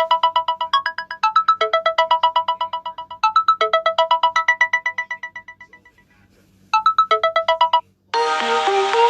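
Samsung Galaxy A21s ringtone playing: a figure of rapid pulsed electronic notes, repeated in phrases, that fades away about six seconds in. It starts again briefly and cuts off, and a different, fuller melodic ringtone begins near the end.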